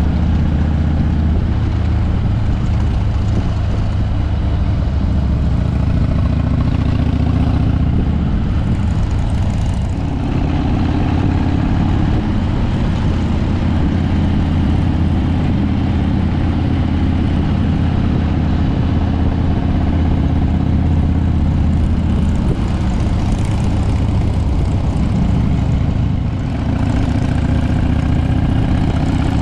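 Harley-Davidson V-twin motorcycle engine running on the road, with wind noise rushing over the microphone. The engine note shifts about ten seconds in and dips briefly near the end before picking up again.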